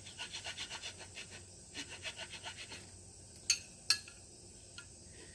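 Rough rasp filing a wooden axe handle in two runs of quick, short scraping strokes, taking down the rim left by the axe head so the wood sits flush. Two sharp clicks follow near the middle, the louder of the sounds.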